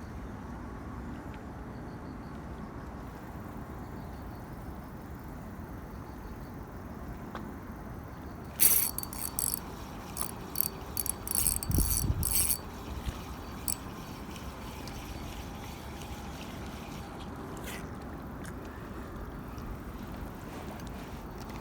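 Fishing reel mechanism running in a string of short, sharp, high-pitched bursts about nine to thirteen seconds in, with a low thump near twelve seconds, over a steady low background rumble.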